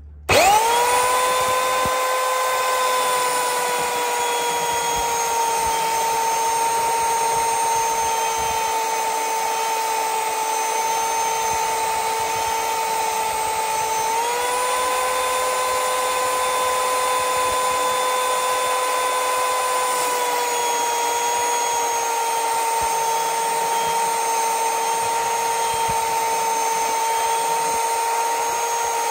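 Bosch belt sander switched on and running steadily, a constant motor whine over the hiss of the abrasive belt as an axe blade is held flat against it to sharpen the edge. The pitch sags slightly under the load and steps back up about halfway through.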